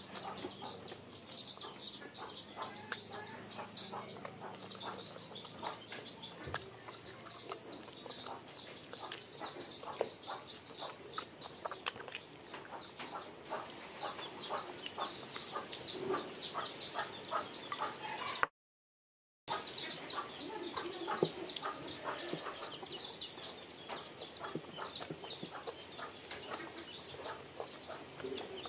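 Close-miked eating sounds: wet chewing and lip smacking as a person eats rice and pork curry by hand, a dense run of short clicky mouth noises. The sound cuts out completely for about a second around two-thirds of the way through.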